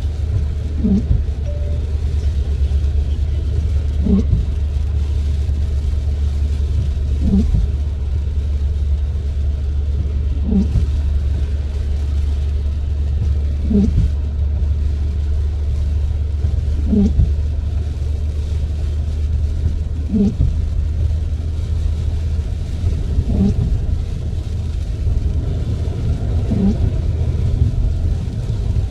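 A car driving on a wet road with a steady low rumble, and the windscreen wipers making a short rubbing stroke about every three seconds. The wipers sound stiff: the blades drag on the glass.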